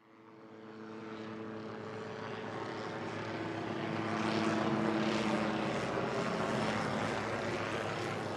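Small quadcopter drone's propellers whirring with a steady droning hum. It fades in from silence and swells to its loudest about halfway through.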